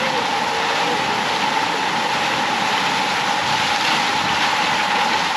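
Water falling steadily from a concrete chute into a pool, a constant rushing splash with no breaks.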